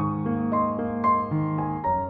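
Slow, gentle background piano music, single notes starting about every half second and ringing on over one another.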